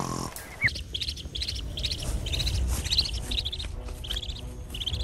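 Duckling peeping: a run of short, high-pitched peeps, about three a second, starting just under a second in.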